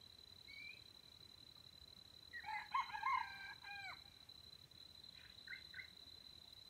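A junglefowl rooster crows once, a short crow of under two seconds that drops in pitch at its end. A steady high tone runs underneath, and there are a couple of faint brief chirps.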